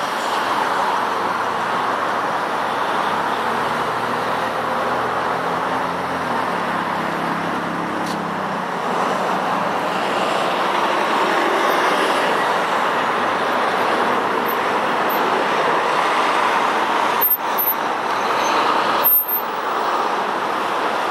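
Boeing 777 jet airliner passing low on landing approach: a steady, loud roar of its engines and rushing air, with two brief sharp dips near the end.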